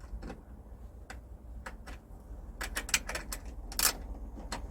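Scattered sharp clicks and light taps of small hardware and hand tools being handled, bunched together about three seconds in, over a low steady hum.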